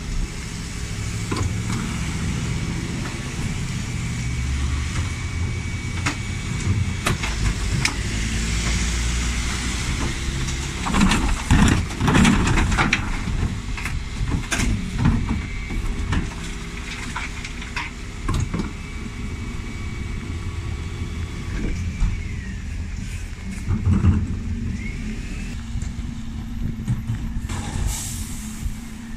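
Dennis Elite 6 refuse truck's diesel engine running while its Terberg TA-DE bin lift tips wheelie bins. Loud clattering bangs come in bursts around the middle and again later, over a thin steady whine that dips and rises in pitch. A short hiss comes near the end.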